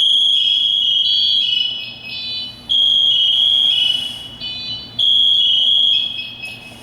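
SCBA PASS (Personal Alert Safety System) device alarm sounding after manual activation: a loud, shrill steady tone alternating with runs of rising stepped tones, repeating about every two and a half seconds and dying away near the end.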